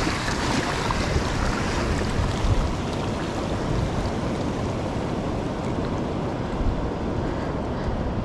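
Small waves washing and lapping steadily over a shallow rocky reef flat, with wind rumbling on the microphone.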